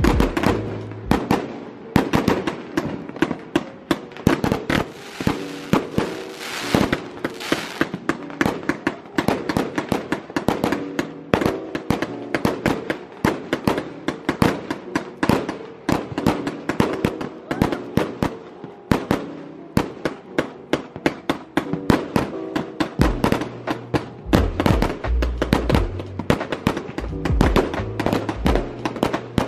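Aerial fireworks going off in a rapid, continuous string of pops and crackles, thickening into a hissing crackle about five to eight seconds in. Music with a bass line plays under them.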